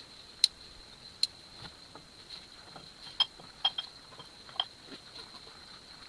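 Gear being handled: two sharp clicks in the first second or so, then a handful of short ringing clinks in the middle, over a steady thin high-pitched whine.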